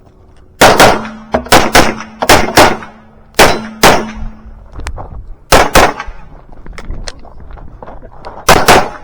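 Glock 17 Gen4 9mm pistol firing a string of about a dozen shots, mostly in quick pairs, with short pauses between the pairs.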